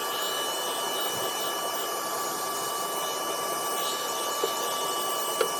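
Vacuum cleaner motor running steadily, a constant whine over a hiss, used to vacuum dirt off an air conditioner's indoor coil; two small clicks near the end.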